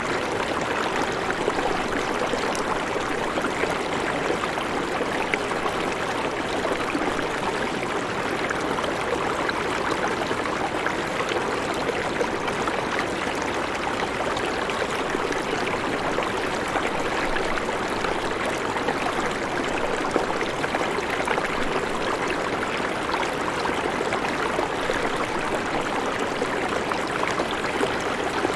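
Shallow river flowing over stones, a steady rushing of water.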